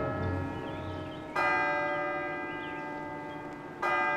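A single church bell tolling slowly: a strike rings out about a second in and another near the end, each hum of overtones fading gradually before the next.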